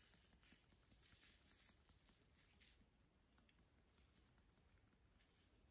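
Near silence, with faint scattered ticks and patter of fine glitter being sprinkled onto paper in a tray.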